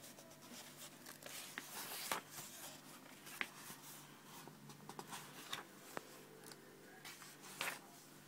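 Book pages being turned and handled by hand: soft paper rustles with a few sharper flicks, loudest about two seconds in and again near the end.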